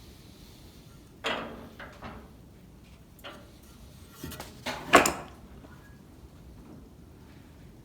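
Irregular clunks and scrapes of heavy metal parts being handled and knocked together, as the motor is fitted to an old Delta contractor table saw. The loudest clunk is about five seconds in.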